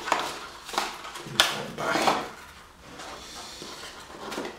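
Paper polyhedron models being handled and set down on a table: a few light knocks and clacks with rubbing rustles, mostly in the first two seconds, then quieter handling.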